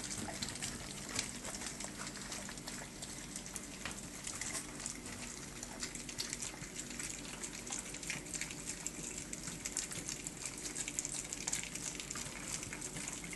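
A litter of four-week-old Staffordshire bull terrier puppies eating wet food from a shared dish: many small wet smacking, lapping and chewing sounds overlapping into a continuous crackle.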